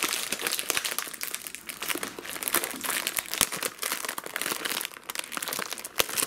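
Plastic wrapping of an Oreo cookie package crinkling and crackling as it is torn and peeled open by hand, with a short lull about five seconds in.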